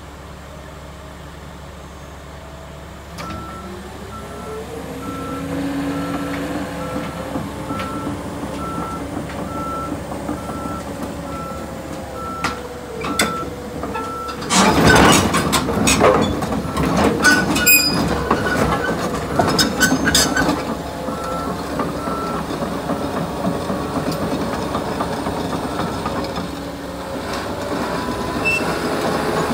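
John Deere 700K crawler dozer's diesel engine revving up and running as it reverses, its backup alarm beeping about twice a second. Partway through, its steel tracks clank and bang loudly for several seconds coming down off the lowboy trailer's deck and ramps, then the engine and alarm carry on.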